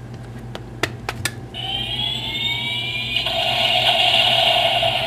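Baymax toy's electronic sound effect through its small speaker: a whine that rises slowly in pitch and, about halfway through, gives way to a louder steady rushing noise, preceded by a few clicks of the toy being handled.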